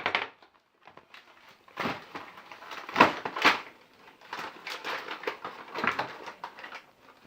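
Irregular clattering and rustling of objects being handled, coming in short uneven bursts with a busier stretch in the second half.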